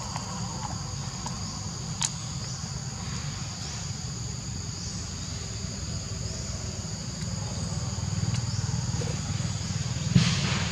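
A steady chorus of insects droning on two high tones, over a low rumble. There is a sharp click about two seconds in and a louder knock near the end.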